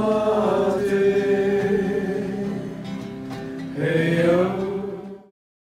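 A roomful of people singing a closing song together in long held notes. A new line starts near the end, then the singing cuts off abruptly.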